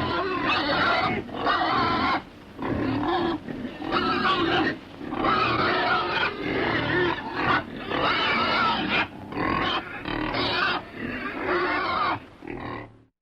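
Pig grunting over and over in runs about a second long, separated by short pauses, fading out right at the end.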